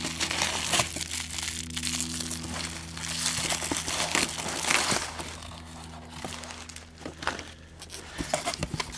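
Bubble wrap, brown packing paper and crumpled paper rustling and crinkling as a hand rummages through a packed cardboard box, in irregular crackles, over a steady low hum.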